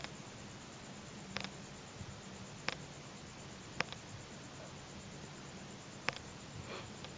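Small plastic and pearl beads clicking together as the thread crossed through them is pulled tight and the beadwork is handled: about five sharp little clicks, irregularly spaced, over a faint steady hiss.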